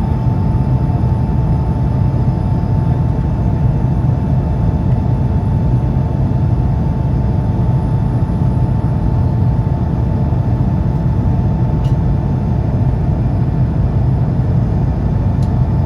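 Cabin noise of an Airbus A220-300 in its climb: its Pratt & Whitney PW1500G geared turbofans and the airflow give a loud, steady low rush, with a steady tone held above it.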